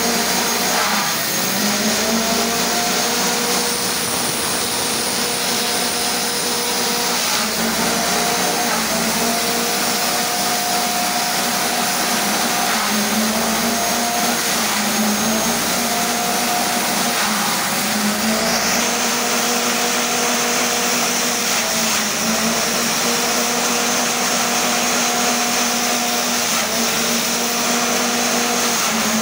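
Small engine-driven forage chopper running at speed, a steady high engine note over the noise of its blades chopping green stalks. The engine's pitch sags briefly several times as stalks are fed in under load, then picks back up.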